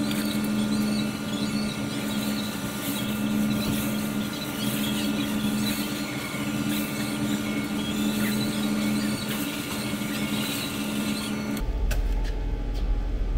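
A small motor whirring steadily at a constant pitch for about eleven seconds, then cutting off suddenly and giving way to a low rumble.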